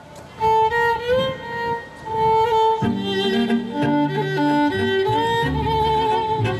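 Polish folk string band playing: fiddles carry a melody with vibrato from about half a second in, and a bowed double bass joins with low notes about three seconds in.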